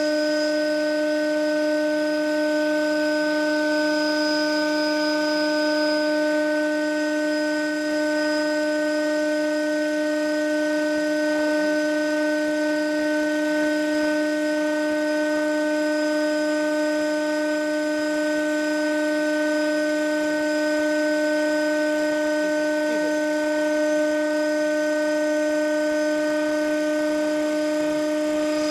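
KMEC tubular centrifuge running at full speed: a steady, high-pitched hum that holds one constant pitch from its spinning bowl and drive.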